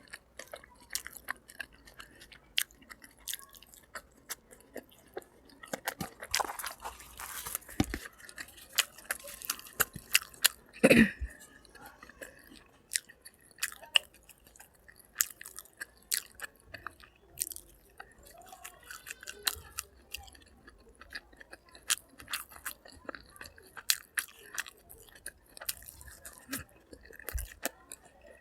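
A person chewing food close to the microphone, with scattered crunchy bites and small mouth and utensil clicks; one louder thump about eleven seconds in.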